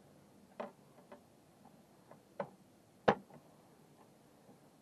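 Metal live trap being set by hand: four sharp metal clicks and clanks, the loudest about three seconds in.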